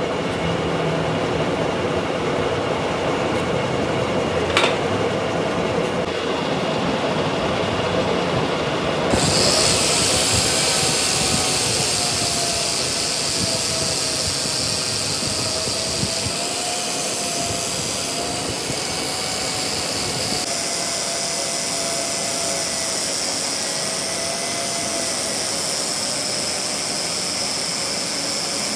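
Workshop machinery running steadily, with a faint wavering tone. A strong hiss joins about nine seconds in and continues.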